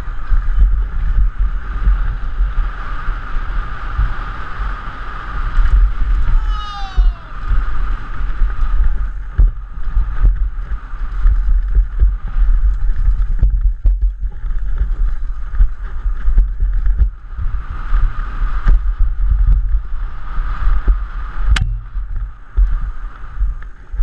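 Wind rushing and buffeting on a helmet-mounted action camera during a fast downhill mountain-bike run, with the bike rattling and knocking over the rough dirt trail. A brief falling whistle-like call comes about six or seven seconds in, and a sharp knock comes near the end.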